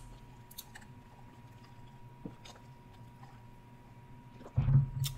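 Faint small clicks and taps of eating and of handling a crab boil in its tray, over a quiet room. A short, louder low sound about four and a half seconds in.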